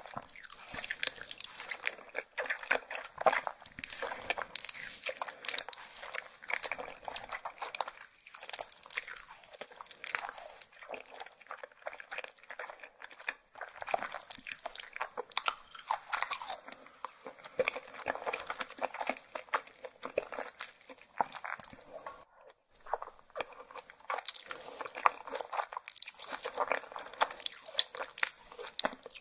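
Close-miked chewing and biting of soft, stretchy beef spine: dense, wet, crackly clicks with short pauses, and a brief lull about 22 seconds in.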